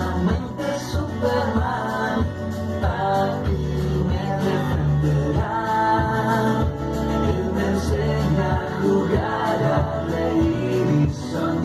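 A song with singing over instrumental accompaniment, a steady beat in the low notes.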